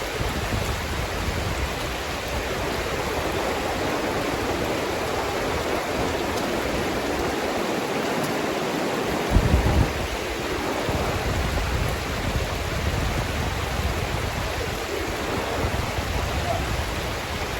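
Fast river water rushing steadily over rocks in pocket water. A brief low thump comes about nine and a half seconds in.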